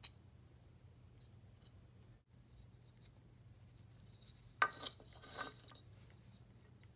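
A hand rubbing and sweeping across a hardwood board strewn with wood shavings: two short scratchy rubs a little past halfway, the first the louder, over a faint steady low hum.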